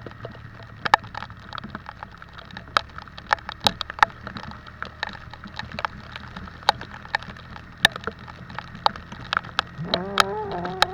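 Raindrops striking close to the microphone as sharp, irregular ticks, over the steady low running of a motorcycle riding in the rain. A short sound rising in pitch comes near the end.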